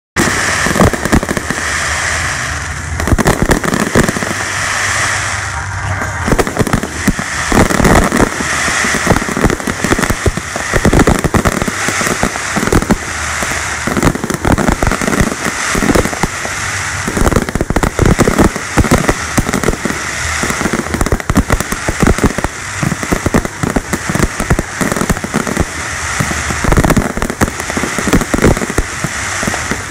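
Fireworks finale: shells bursting in a continuous, rapid barrage of bangs over a dense crackle.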